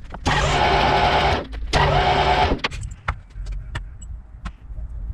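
A workshop machine motor runs in two short bursts of about a second each, at a steady pitch with a harsh noisy edge, followed by scattered clicks and knocks.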